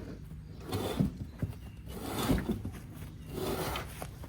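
Three surges of creaking and rubbing about a second and a half apart, as the VW bus's suspension is forced down by brute force with a desk chair.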